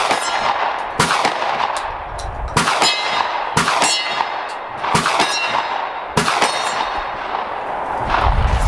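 Semi-automatic shotgun shots fired in a string roughly a second apart, each followed by the ringing clang of struck steel targets.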